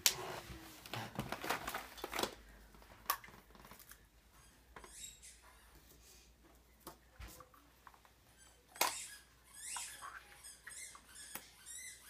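Plastic eggs being handled and opened: scattered light clicks and short rustles, busiest in the first two seconds and again near the end.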